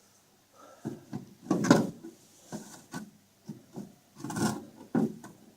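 Irregular handling noises: scattered knocks, scrapes and rubbing at uneven intervals, the loudest about a second and a half in and again past four seconds.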